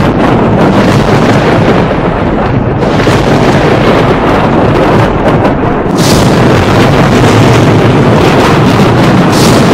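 Thunder rumbling continuously in a thunderstorm. The sound turns suddenly brighter and harsher about six seconds in.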